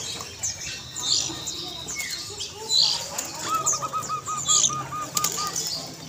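A crowded cage of zebra doves: wings flapping and fluttering, with a run of about ten evenly repeated soft coo notes in the middle. Short, sharp high chirps from other small birds come throughout.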